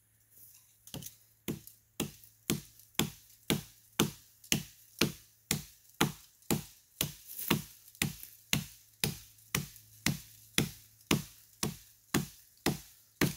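Hatchet chopping into wood in a steady rhythm, about two strokes a second, starting about a second in.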